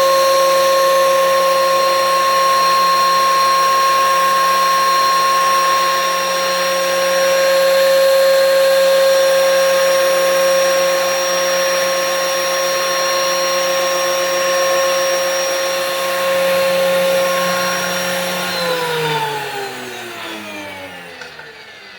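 DeWalt benchtop thickness planer running with a steady high motor whine, then switched off about 18 to 19 seconds in, its cutterhead and motor spinning down with a falling whine that fades away.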